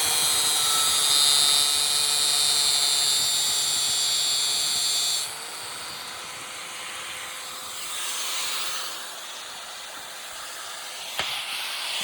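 Angle grinder cutting through an old TV's casing with a loud, steady high-pitched hiss; about five seconds in the disc comes out of the cut and the grinder keeps running free, much quieter. A single click near the end.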